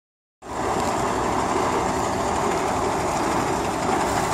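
Steady vehicle rumble with no speech, starting abruptly about half a second in after a moment of silence.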